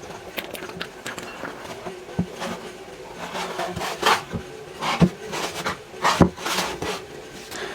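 Small wooden bird nest box being handled: scattered clicks, light rubbing of wood and a few sharper knocks, the clearest about two, five and six seconds in.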